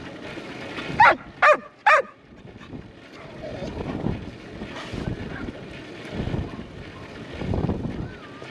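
A dog barks three times in quick succession, each bark dropping in pitch at the end, over steady wind noise on the microphone.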